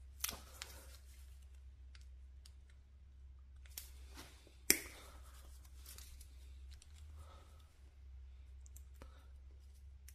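Faint clicks and rustling of gloved hands working a tire plug insertion tool, threading a sticky rubber repair string through its eye and pulling it with pliers; a sharp click a little under five seconds in is the loudest sound. A low steady hum runs underneath.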